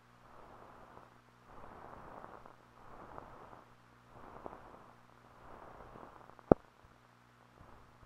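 Old film soundtrack noise with no speech: a steady low hum and swells of hiss, a few faint crackles, and one sharp pop about six and a half seconds in.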